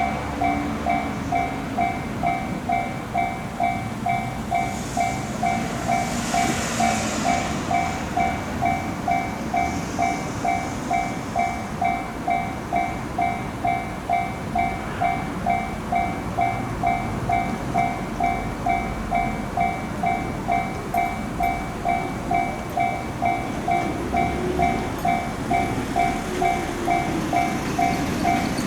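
Japanese railway level-crossing warning bell ringing its steady "kan-kan", about two strikes a second, while a train runs past over the rails.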